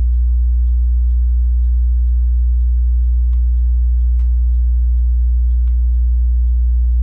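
Dayton Audio RS1200K 12-inch subwoofer playing a steady 60 Hz test tone at −10 dB. A few faint ticks are heard over it, which are things in the room rattling.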